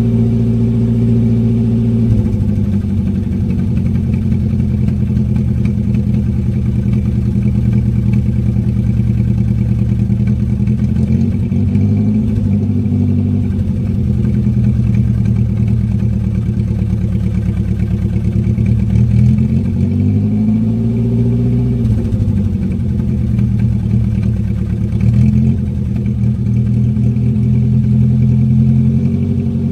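Old car engine running at a steady idle, its speed rising briefly a few times, near the middle and later on, as it burns off Seafoam cleaner fed in to loosen carbon buildup.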